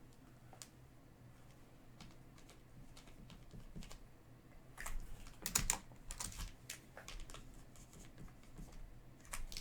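Trading cards being handled and flipped through: scattered light clicks and snaps, with a louder quick run of them about five to six and a half seconds in and again near the end.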